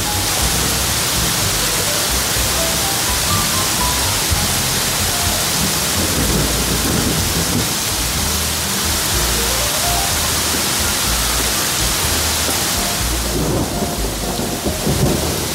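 Heavy rain with hail pouring down in a thunderstorm, a dense steady hiss, with thunder rumbling low underneath. The hiss thins for a moment shortly before the end.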